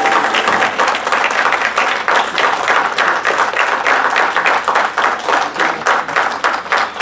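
Audience applauding, many hands clapping together; the clapping grows more uneven, with separate claps standing out, in the last few seconds.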